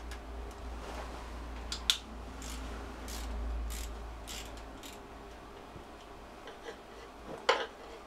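Light metallic clicks and clinks as the front engine cover of a BMW R100GS motorcycle is worked free and lifted off its Allen screws. There is a sharp click about two seconds in and a louder one near the end, with soft rubbing and ticking between them.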